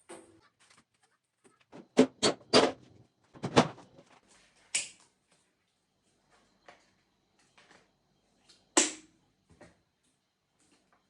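Household objects being handled and set down: a series of knocks and clatters, three in quick succession about two seconds in, another around three and a half seconds, and a sharp one near nine seconds, with small clicks in between.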